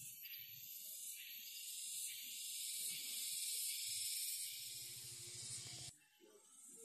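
Steady high-pitched insect drone from the surrounding trees, growing louder, with a low rumble as the rifle and scope are swung quickly, cutting off abruptly about six seconds in.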